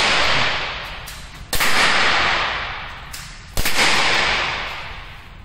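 Umarex .50 caliber CO2 air pistol firing two shots about two seconds apart, each a sharp crack followed by a long echo off the metal walls of a shed; the echo of a shot fired just before is still fading at the start.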